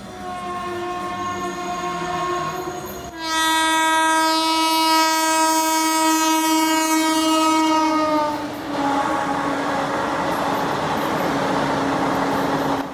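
Train horn sounding in long held blasts: a softer tone for about three seconds, then a louder blast a little lower in pitch that sags slightly and fades about eight and a half seconds in. A steady rushing noise of the passing train takes over, with the horn still faintly held beneath it.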